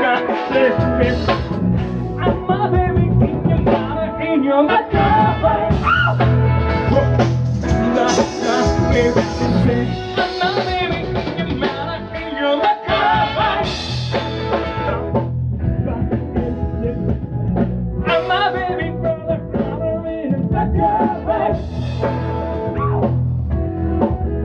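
Live band playing upbeat rock and roll: a male lead singer sings into a microphone over a horn section of saxophones and trumpet, backed by electric guitar, keyboard and a steady beat.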